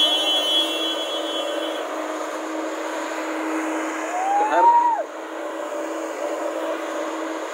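Diesel engine of a JCB JS205 LC tracked excavator running steadily with a low hum while the arm swings and lifts. A high whine fades out in the first two seconds. About four to five seconds in, a short tone rises and then drops away.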